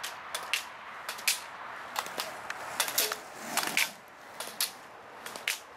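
Irregular sharp clacks of an inline skater running a slalom course: plastic slalom gates being knocked aside and ski pole tips striking the asphalt, a few a second, over the steady rolling of skate wheels.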